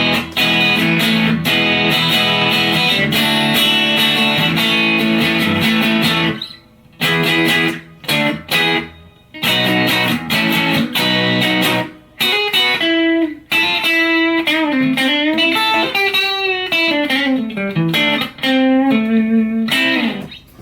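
Electric guitar played through a Surfyman Brownface amp-emulator pedal straight into an amp with no reverb, a dry tone. Chords for about six seconds, then short stop-start phrases, and a single-note lead with string bends near the end.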